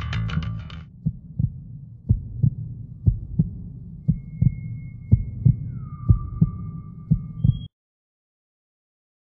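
Heartbeat sound effect: paired lub-dub thumps about once a second over a low rumble. A thin steady high tone and a short falling whine join partway through, and it all cuts off abruptly near the end.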